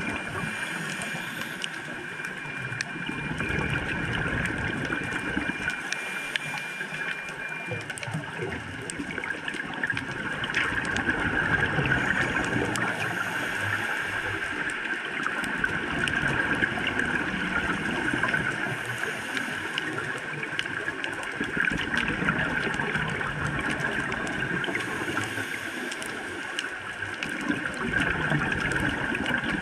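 Scuba regulator breathing heard underwater: a slow cycle, about every six seconds, of a hissing inhale followed by a rumble of exhaled bubbles, over steady underwater noise.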